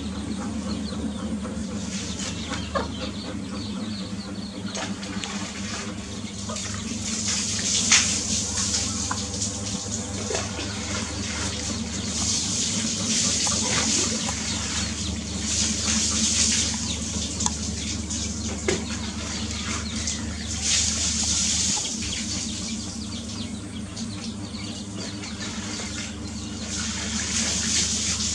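Hen and young chicks foraging, with the chicks peeping and the hen clucking, over a steady low hum. A high hiss swells and fades every few seconds.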